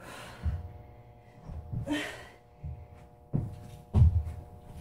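A woman breathing hard with gasping exhales, and dull thumps of her body and feet on a carpeted floor as she does reverse burpees, the loudest thuds near the end.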